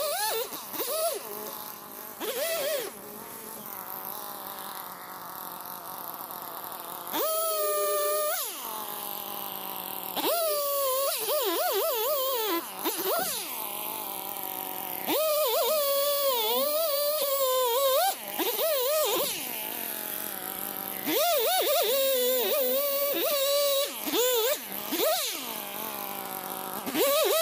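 Music with a wavering, voice-like melodic line in phrases a few seconds long, over a steady hiss.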